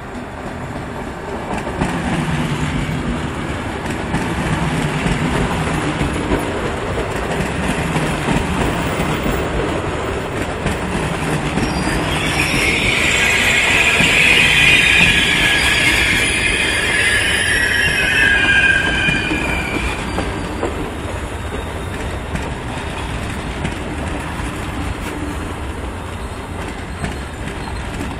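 Passenger train of Trenitalia coaches rolling slowly past along the platform, with steady wheel and rail noise. From about twelve seconds in to about twenty seconds in, the wheels squeal loudly on the curved track.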